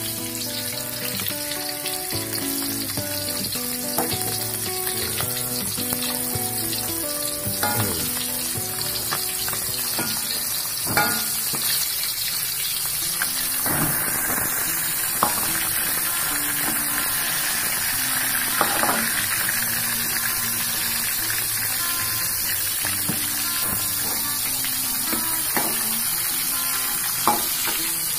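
Chicken pieces frying in hot oil in a wok, giving a steady sizzle, with a few sharp knocks from stirring against the pan.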